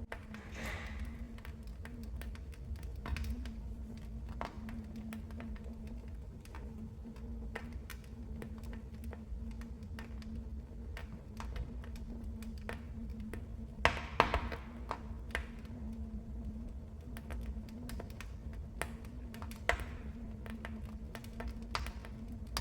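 Fire crackling in a fireplace: irregular sharp pops and snaps over a low steady rumble, with a louder cluster of snaps about fourteen seconds in.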